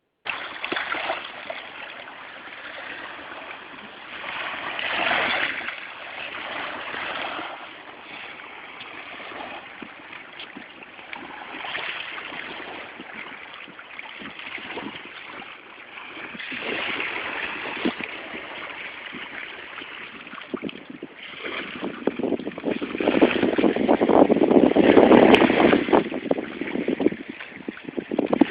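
Ocean waves breaking and washing in, surging every few seconds, with the loudest and longest surge about three quarters of the way through.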